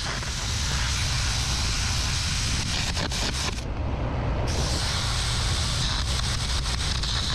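Air carbon arc gouging into the steel of a trailer hitch: a steady hiss and crackle of the arc and air jet blowing out old weld metal. It breaks off for about a second near the middle and starts again, over a steady low engine rumble.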